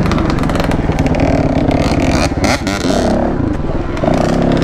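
Yamaha WR450F's single-cylinder four-stroke engine running, the revs dropping briefly and picking up again about halfway through.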